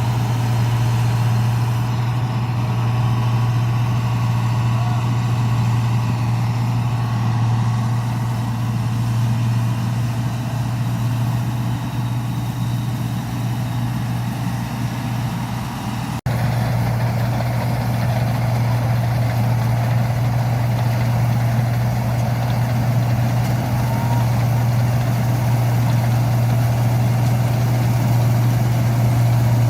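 New Holland 8070 combine harvester running steadily with a constant low drone. The sound cuts out for an instant about halfway through and resumes unchanged.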